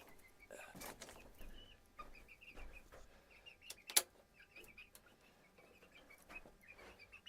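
Chickens clucking softly in short, repeated notes, with a few sharp knocks; the loudest is a single click about four seconds in.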